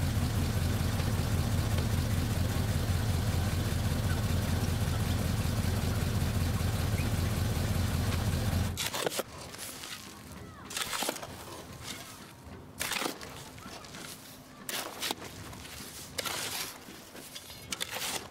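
A pickup truck's engine idling steadily, which cuts off abruptly about nine seconds in. After that comes a shovel digging dry, stony earth: a scrape and a crunch of soil with each stroke, about every second or two.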